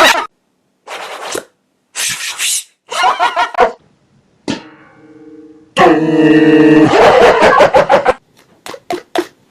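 A string of mouth-made sound-effect imitations. There are short hissing bursts, a pair of held tones about halfway through, and a loud buzzing tone. Quick clicks follow near the end.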